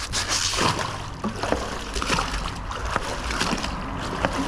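Canal water splashing and trickling as silt-laden scrap is hauled out on a magnet line, with scattered small clicks and knocks throughout.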